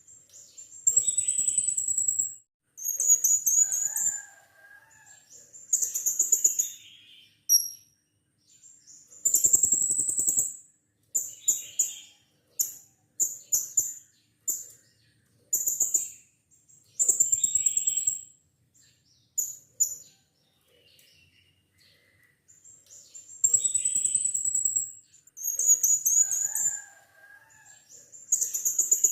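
Blue-crowned hanging parrot (serindit) calling: repeated shrill, high-pitched buzzy calls in bouts of one to two seconds with short pauses between them, mixed with a few lower, shorter notes.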